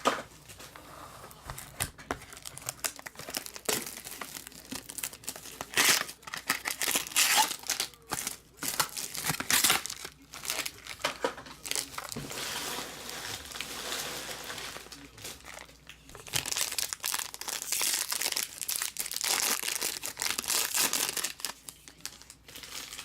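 Plastic shrink-wrap being picked at and peeled off small cardboard trading-card boxes, crinkling and crackling in irregular bursts with occasional tearing.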